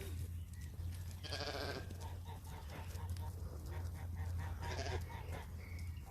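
Penned livestock bleating: two loud bleats, one about a second in and one near five seconds, with fainter calls between.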